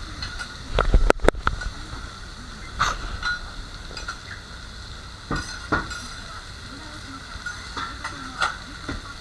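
Metal spatulas clinking, tapping and scraping on a hot teppan griddle, over a steady sizzle of okonomiyaki frying. A quick cluster of sharp clicks about a second in, then single knocks every second or two.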